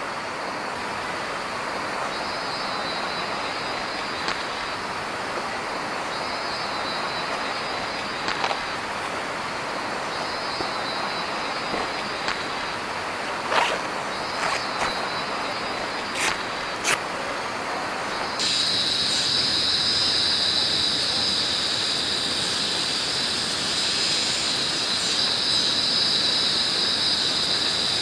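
Tropical rainforest ambience: a river rushing steadily under a high insect drone that swells up for a second or so about every four seconds, with a few sharp clicks in the middle. About eighteen seconds in it changes abruptly to a louder, unbroken high insect drone.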